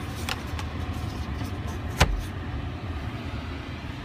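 Glove box lid shut with one sharp thump about two seconds in, with a few light clicks before it, over a steady low rumble in the car's cabin.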